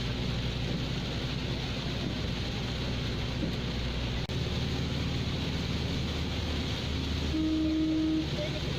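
Motor vehicle running steadily with a low engine drone, with a short steady tone near the end.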